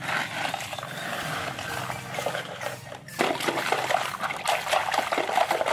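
Wet sand and muddy water squelching and splashing under a hand in a plastic toy dump truck's bed, then water sloshing and splashing more loudly from about three seconds in as the hand reaches into the shallow water beside the truck.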